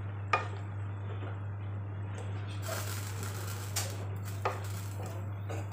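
A wooden spatula stirring and tossing rice noodles and vegetables in a pan, scraping and knocking against the pan a few times, over a steady low hum.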